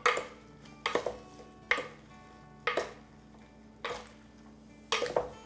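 Wooden salad servers tossing dressed romaine lettuce in a wooden bowl, one sharp stroke about once a second.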